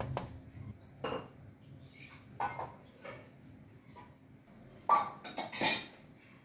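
A spatula stirring dal in a steel pan, scraping and knocking against the metal several times. The loudest strokes come about five seconds in.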